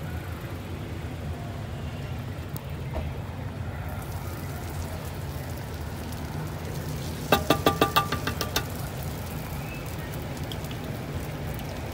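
Steady low rumble at a street food stall, with a quick run of about eight sharp metallic clinks that ring briefly, a little past the middle.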